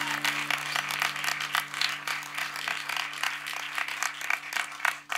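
Small audience clapping at the end of a live song, with the band's last sustained low notes fading underneath; the clapping dies away near the end.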